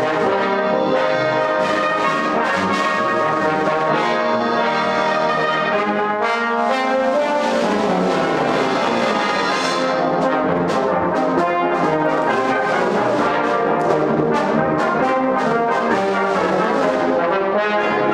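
Brass band playing a festival march live: cornets, trombones and horns together at a steady full level, with drum strokes marking the beat.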